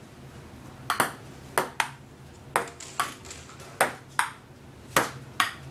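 Ping pong ball clicking sharply off the paddles and the table during a rally: about ten crisp clicks, coming in quick pairs.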